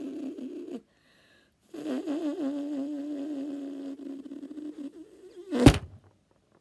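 A woman's lips buzzing as air is blown through them, imitating a buzzing fly: a steady low buzz with a slightly wavering pitch. It breaks off under a second in, starts again about two seconds in, and ends with a short, very loud burst near the end.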